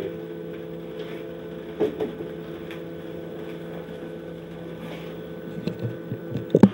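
A steady hum of several tones in the background. Near the end come a few sharp knocks and rustles from the camera being handled, the loudest sounds here.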